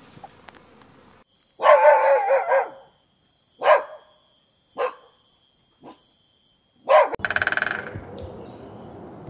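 Dog barking: a loud drawn-out bark, then single shorter barks about a second apart that grow fainter, another loud bark near the end and a quick rattling yap after it.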